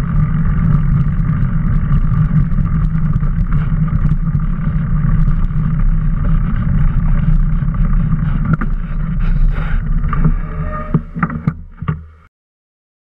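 Steady rumble and wind noise of a mountain bike rolling along a dirt trail, picked up by a camera mounted on the bike, with a few sharp knocks from the bumpy ground near the end before the sound dies away.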